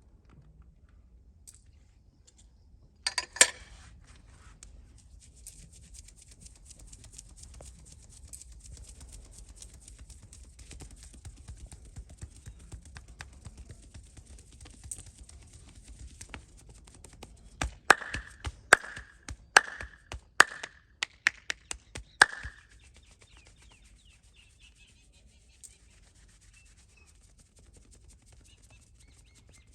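Hands working a head massage: soft rubbing and scratching on skin and hair, with a quick cluster of sharp clicks a few seconds in, then a fast run of about ten sharp hand strikes over some four seconds, each with a brief ring, as in massage tapping.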